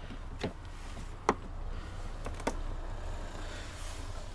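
Four short, sharp clicks and taps over a low steady hum, the loudest about a second in: tools and small screws being handled while the screws come out of a motorcycle's radiator shroud.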